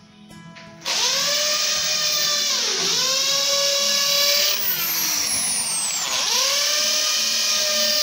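Corded handheld electric drill starting about a second in and running at speed with a high whine, pressed into a plastic switch board on a concrete wall; its pitch sags and recovers twice as the motor slows under load.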